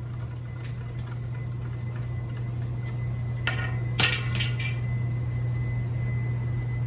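Steady low electrical hum, with a few sharp clicks and knocks, the loudest about four seconds in.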